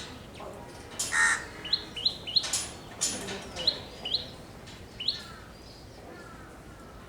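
Sparrows chirping: short rising cheeps in quick runs of two or three, with a louder, harsher call about a second in.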